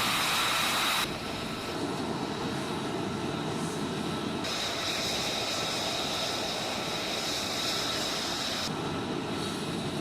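Jet engine running with a steady rushing noise and a thin high whine. The sound shifts abruptly about a second in, near the middle and near the end, as separate shots of the engine are cut together.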